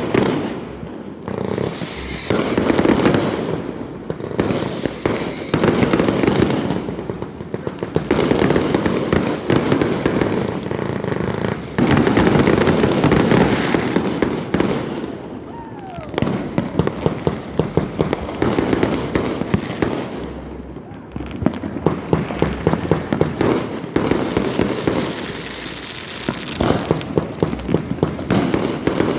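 Dense, overlapping fireworks: repeated bangs and crackling pops, with two falling whistles in the first few seconds and a stretch of rapid crackling near the end.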